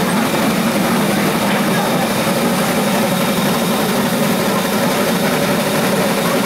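Cass Scenic Railroad's Shay geared steam locomotive No. 6 working up the grade, a loud, steady, unbroken running sound with heavy smoke from the stack.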